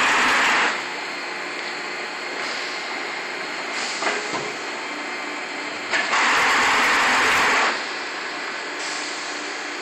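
Traveling-head die-cutting press running with a steady hiss, rising into a loud hissing surge for about a second and a half at the start and again about six seconds in, with a few light clicks in between.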